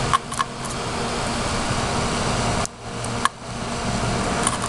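Electrical arcing from a 13.8 V bench supply lead shorted against a motherboard's Northbridge chip: a steady sizzling hiss with a few sharp crackling snaps, dropping out briefly and coming back with a snap near the middle. The sizzle comes with the thermal paste on the chip burning up.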